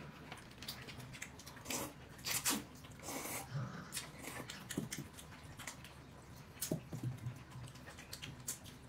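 Someone eating at close range: wet chewing and smacking with scattered short clicks, a few louder bursts about two to three and a half seconds in.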